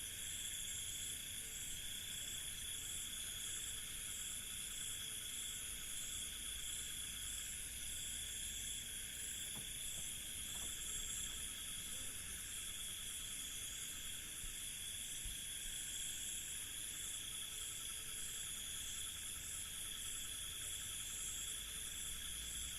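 Crickets chirping at night in a continuous chorus: several overlapping high-pitched trills at different pitches, one steady and others rapidly pulsing, with no break.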